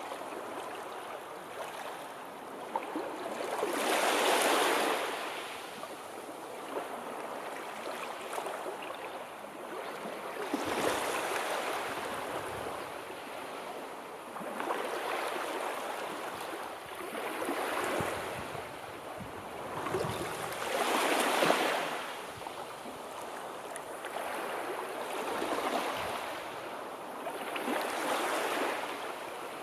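Sea waves washing in, a rushing noise that swells and falls back every few seconds, with the biggest surges about four seconds in and again about two-thirds of the way through.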